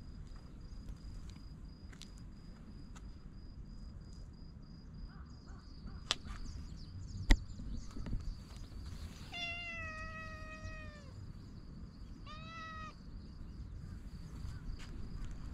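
A tabby cat meows twice: a long meow lasting almost two seconds that drops in pitch at the end, then a short one. Before the meows comes a single sharp click, the loudest sound.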